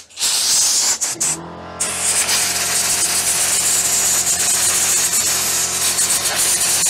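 Compressed-air blow gun hissing, first in short bursts and then steadily. About a second and a half in, an air compressor kicks on and runs with a steady hum under the hiss.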